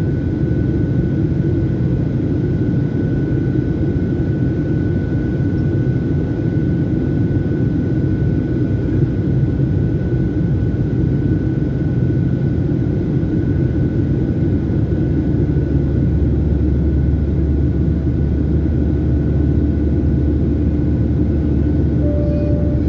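Steady jet engine and airflow noise inside the cabin of a Boeing 737 climbing after takeoff: a heavy low rumble with a thin, steady high whine above it.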